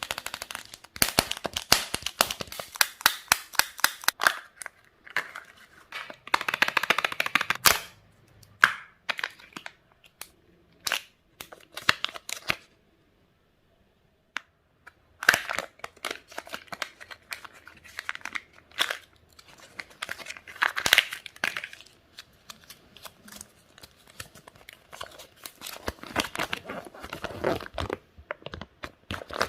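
Crinkly candy wrappers being torn open and unwrapped by hand, in bursts of crackling with sharp clicks, broken by a pause of a couple of seconds near the middle.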